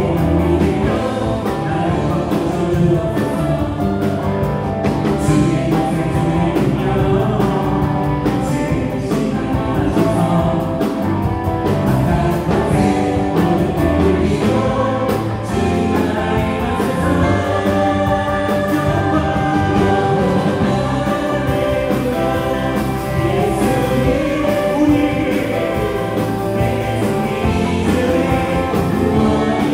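A church praise band playing a worship song: electric guitar, bass guitar, drums, and Korg Triton and Yamaha Montage keyboards, with voices singing along.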